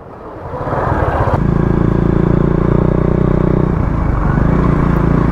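Motorcycle engine running steadily while riding, with a brief dip in pitch a little under four seconds in before it steadies again.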